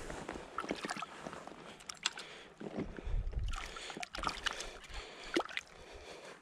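Shallow river water sloshing and splashing as a hand grips a small cutthroat trout in it, with irregular small splashes and clicks.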